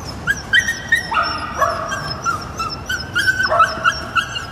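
Several dogs in pet travel crates yapping and whining, short high-pitched calls coming one after another and overlapping.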